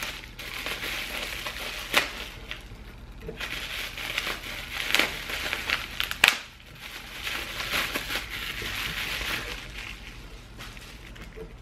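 Bubble-wrap packaging crinkling and rustling as it is handled and pulled open, with a few sharp crackles, the sharpest about six seconds in.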